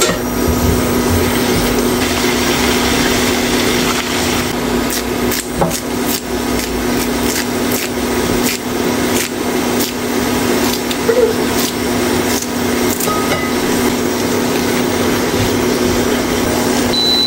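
Food sizzling in a pan as it is stir-fried, with a spatula scraping and giving irregular clicks against the pan, over a steady hum.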